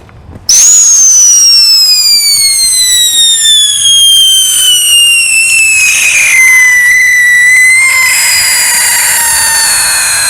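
Whistling ground firework: one loud, high-pitched whistle that starts suddenly, slowly falls in pitch for about six seconds, holds steady, then turns rougher before cutting off at the end.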